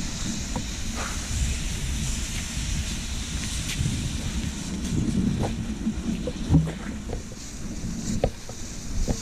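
Kick sled runners scraping and rumbling over lake ice, with wind buffeting the microphone and a few knocks, the loudest about six and a half seconds in.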